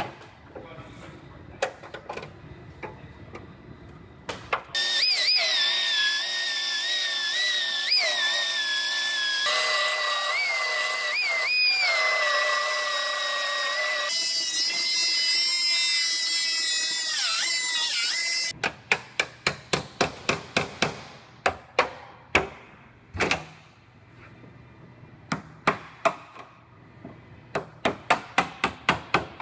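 A power tool whines for about fourteen seconds, its pitch dipping and recovering as it works into the car's body panel. It stops suddenly, and a hammer then strikes a chisel on the steel panel in quick runs of about five blows a second, with short pauses between runs.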